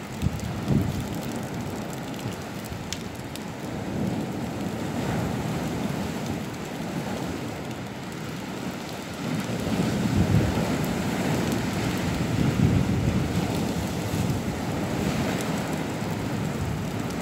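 Sea waves breaking against a seawall and washing over the promenade: a continuous rushing of surf that swells about four seconds in and again around ten seconds in.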